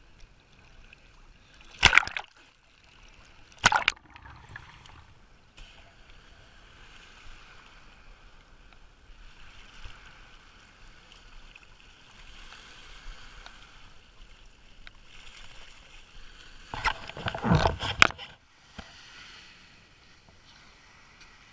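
Sea water splashing and sloshing around the camera in shallow surf, with sharp loud splashes about two and four seconds in and a cluster of splashes near the end; a low wash of surf fills the gaps between.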